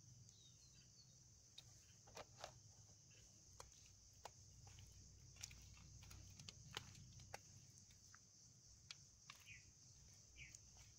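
Near silence: a faint steady high insect drone, with scattered soft clicks and a couple of short chirps near the end.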